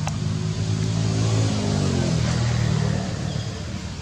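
A motor vehicle's engine passing close by, getting louder and then dropping in pitch as it goes past.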